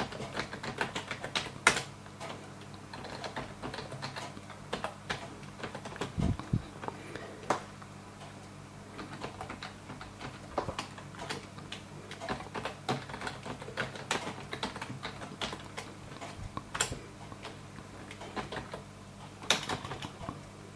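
Typing on a computer keyboard: irregular runs of key clicks with a few sharper, louder strokes, over a steady low hum.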